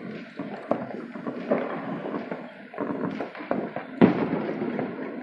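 Many fireworks going off across a city, a dense run of overlapping bangs and crackles, with one sharper, louder bang about four seconds in.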